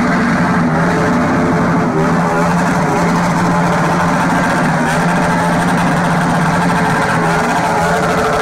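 A vehicle engine running at a nearly steady speed, giving a loud, constant drone with only small shifts in pitch.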